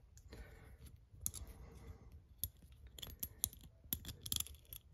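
Faint, irregular light clicks and clinks of small metal curtain-pole bracket parts and a small screw being handled in the fingers, coming thicker in the second half.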